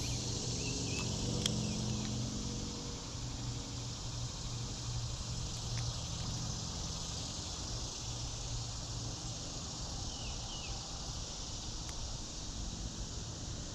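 Steady chorus of insects singing, a continuous high-pitched buzz that holds unchanged throughout.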